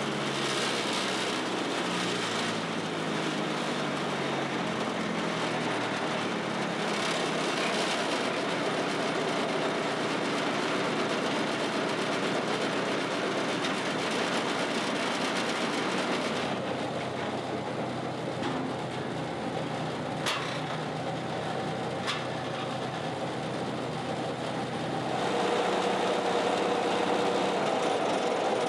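Bandit Model 90XL brush chipper running on its diesel engine, a loud steady machine sound whose level and pitch shift a few times, with a couple of sharp clicks in the middle.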